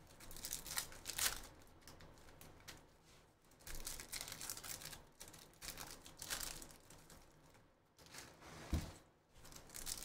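Foil trading-card pack wrappers crinkling and tearing as the packs are ripped open by hand, in several irregular bursts.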